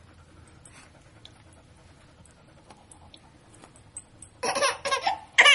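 Quiet carpeted room with a few faint clicks, then about four and a half seconds in a short, loud burst of laughter.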